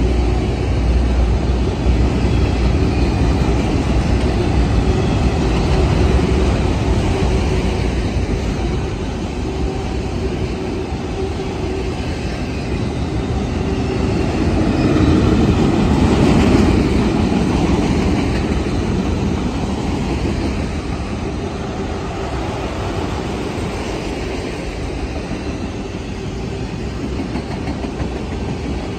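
A freight train of enclosed autorack cars rolling steadily past, its wheels running over the rails in a continuous rumble. The rumble grows briefly louder about halfway through.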